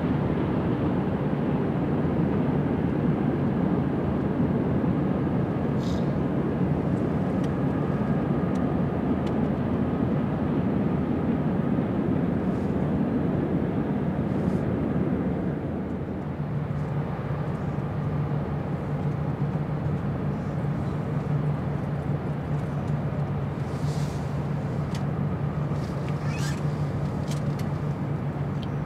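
Steady low engine rumble with a constant low hum; about halfway through the rumble eases a little while the hum holds on more clearly. A few faint, short high chirps come through, once early on and a couple of times near the end.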